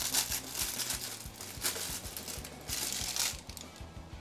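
Plastic packaging crinkling as a 1/6-scale figure's accessories are unwrapped, in several bursts of rustling that die down near the end.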